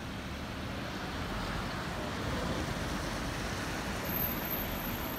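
Road traffic: a steady low rumble of passing vehicles that swells slightly midway.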